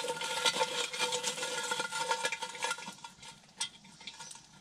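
A metal utensil scraping and clinking around the inside of a cast iron Dutch oven, spreading oil over it; the scraping goes on for about three seconds, then thins to a few scattered clicks.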